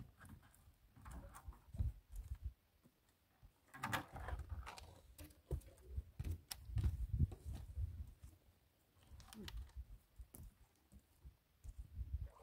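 Quiet, irregular clicks, taps and rustling of a fishing handline being worked by gloved hands, mixed with low thumps of handling, a louder patch of rustling about four seconds in.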